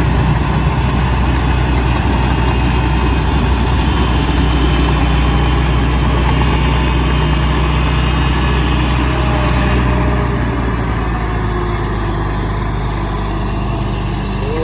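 Rice combine harvester's engine running steadily, its hum easing slightly in level and pitch about ten seconds in.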